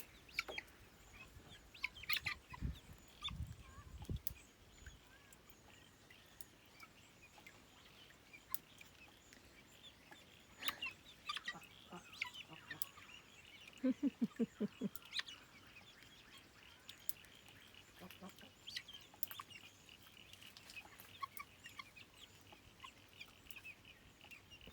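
A flock of domestic poultry calling quietly, with scattered faint high chirps throughout and, about midway, a quick run of about six low calls. A few soft low thuds come in the first few seconds.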